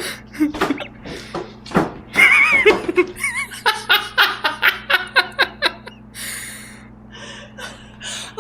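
A person laughing, in a quick run of short bursts, with a high wavering sound shortly before.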